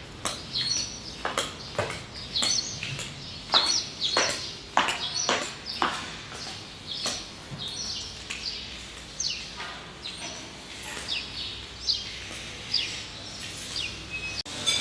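Small birds chirping: many short, sharp chirps, each dropping quickly in pitch, coming in quick irregular succession.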